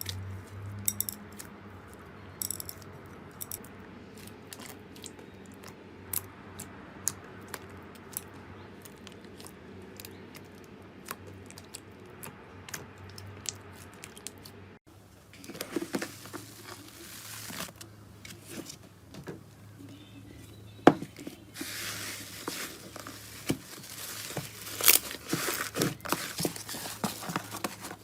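Slime being squeezed, stretched and poked by hand, making sticky crackling and popping clicks; about halfway the sound cuts to another slime clip with denser crackling.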